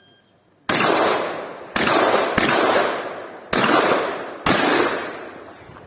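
Shotgun fired five times at an uneven pace in a practical shooting stage, roughly a second apart with one quicker pair, each shot followed by a long echo.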